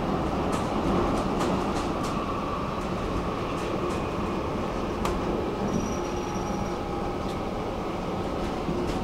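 Stockholm metro train running on the rails: a steady rumble of wheels and running gear with scattered sharp clicks, and a faint high whine for about a second midway.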